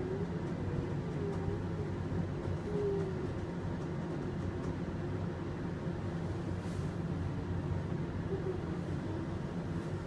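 OTIS passenger elevator running with a steady low hum as the car travels between floors.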